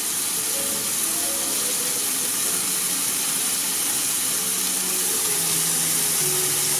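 Slices of homemade sucuk (Turkish spiced beef sausage) sizzling in a frying pan, cooking in the fat rendered from the mince with no oil added: a steady hiss.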